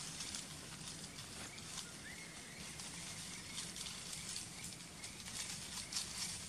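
Outdoor ambience over dry leaf litter: scattered light clicks and rustles, with a faint short call about two seconds in and again near five seconds.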